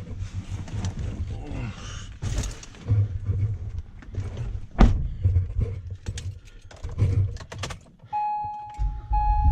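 Knocks, clicks and a jangle of keys, with one sharp loud thunk about five seconds in. Near the end a steady electronic chime starts, beeping in long tones about once a second.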